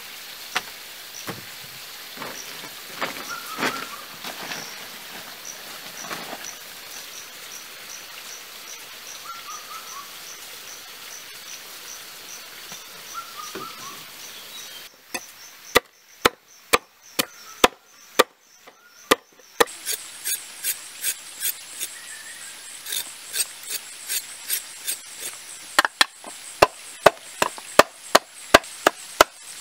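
Rainforest background with insects chirping in a rapid, even high series. About halfway through it cuts to a knife chopping against a wooden or bamboo surface. The sharp strikes come roughly two a second and are the loudest sounds, with insects buzzing behind them.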